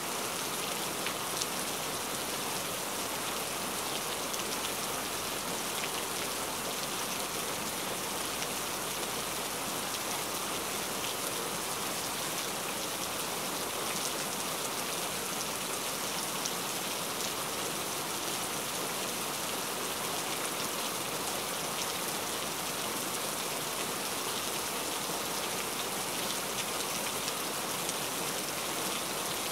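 Steady, even rain-like hiss with faint fine patter and no separate knife strikes.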